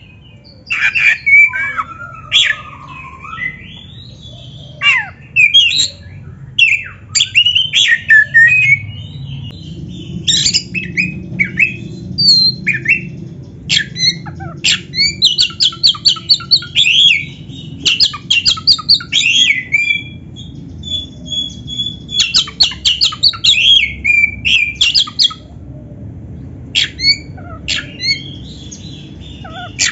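Oriental magpie-robin (kacer) singing a long, varied song of whistled glides, rapid rattling trills and harsh notes, broken by short pauses, over a steady low background hum.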